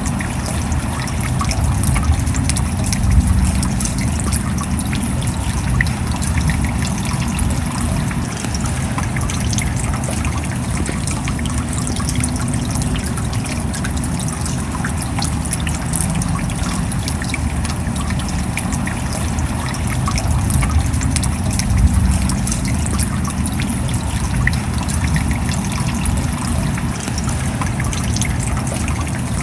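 Steady rain, a dense even hiss studded with many separate drop hits, swelling slightly twice.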